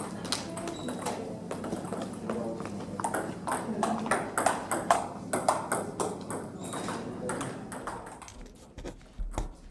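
Table tennis rally: the ball clicking in quick succession off the paddles and the table, until the point ends about seven seconds in. Voices murmur in the hall behind.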